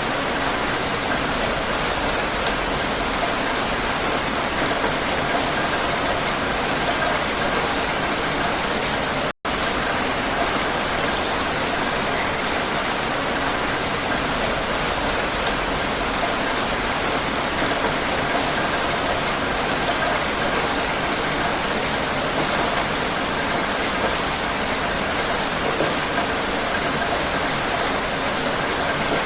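Heavy rain falling in a steady, dense hiss, cutting out for an instant about nine seconds in.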